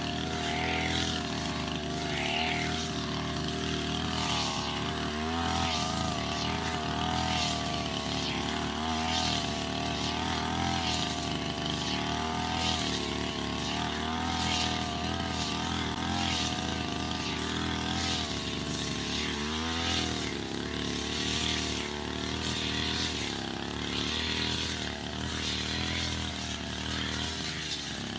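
Backpack brush cutter with a circular blade running while cutting tall grass. The engine speed wavers up and down and dips briefly several times as the blade takes load.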